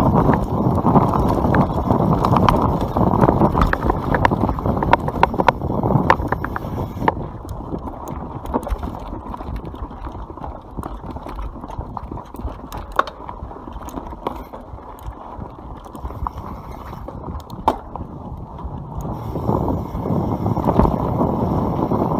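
YT Capra mountain bike riding fast down a dirt forest trail: the tyres rumble over the ground while the chain and frame rattle in scattered sharp clicks and clacks. It is loudest in the first few seconds and again near the end, and quieter in the middle.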